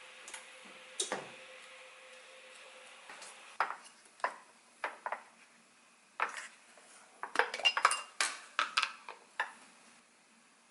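Dishes and cutlery clinking and knocking: separate clinks every second or so, then a quick run of clatter with short ringing pings near the end.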